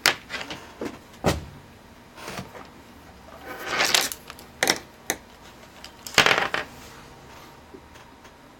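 Objects being handled and set down on a workbench: a few scattered knocks and clicks, with two short rustles about four and six seconds in.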